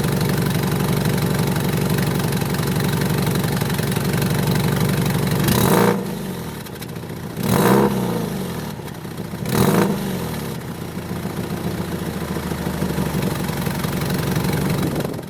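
Subaru Impreza WRX STI (GDB) turbocharged flat-four idling through a titanium aftermarket muffler, blipped three times about two seconds apart, each rev rising and falling quickly before settling back to idle. The abnormal exhaust noise comes from an exhaust leak where the muffler's gasket has blown out.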